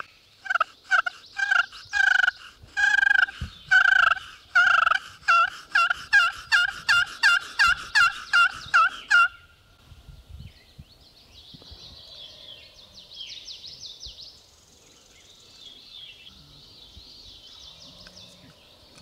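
A long run of loud turkey yelps, the notes coming faster and closer together toward the end, stopping about nine seconds in.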